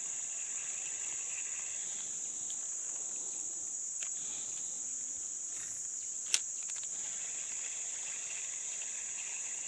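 Steady high-pitched insect chorus, with a single sharp click about two-thirds of the way through.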